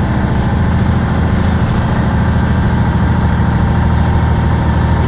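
Transit bus engine running steadily as the bus drives along, a low even hum heard from inside the cabin near the driver's seat.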